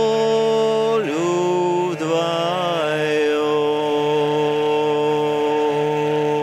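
A man singing a wordless closing phrase of a Russian song over the steady drone of a hurdy-gurdy: two short sliding notes, then one long held note.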